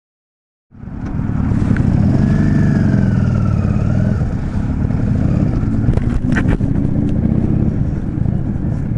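After a moment of silence, a Yamaha Drag Star 400's air-cooled V-twin starts up loud and steady as the bike rides off slowly, a heavy low rumble with a few short clicks about six seconds in.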